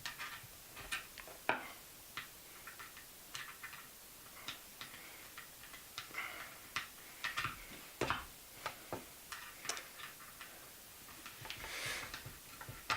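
A worm-drive hose clip (Jubilee clip) being tightened around a pipe with a screwdriver: a run of small, irregular clicks as the screw turns and draws the slotted band in, with a few brief scrapes.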